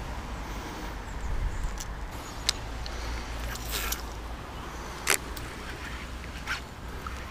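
Rod and baitcasting reel being handled during a cast and retrieve, giving a few short sharp clicks over a steady low rumble.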